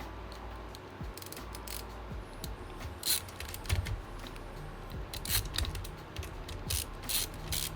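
Screwdriver driving small screws into a laptop trackpad: a run of irregular light clicks and ticks.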